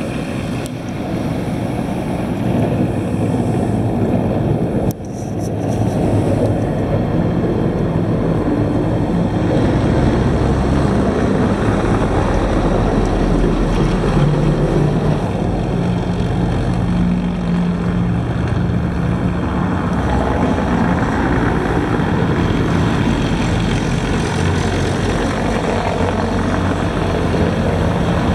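Scania semi-truck's diesel engine running as it passes close by, with traffic noise. The low engine drone swells in the middle and eases off afterwards, with a short break about five seconds in.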